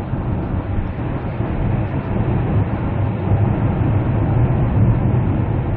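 Steady in-cabin road and engine noise of a 2017 Kia Carnival diesel minivan cruising at about 100 km/h on a highway uphill, the engine near 2200 rpm, with a low hum under it. The van enters a road tunnel partway through, adding the tunnel's roar.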